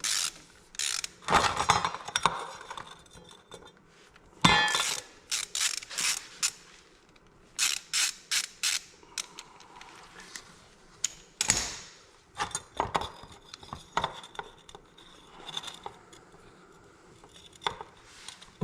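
Ratchet wrench clicking in short runs while working a plug on an excavator final drive, with knocks and clanks of tools on metal.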